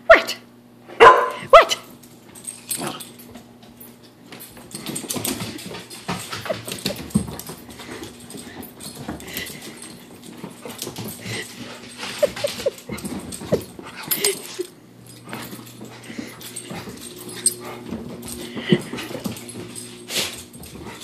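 American Bulldog barking a few times near the start, then scrabbling and thumping of its paws as it races around and jumps on and off the couch, with a few short yips.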